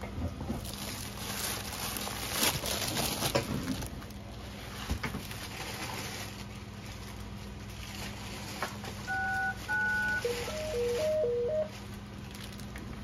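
Rustling and crinkling as a plastic-wrapped diamond painting kit is handled, loudest in the first few seconds. About nine seconds in, an electronic device sounds two short double-tone beeps like telephone keypad tones, followed by a quick run of alternating higher and lower beeps lasting just over a second.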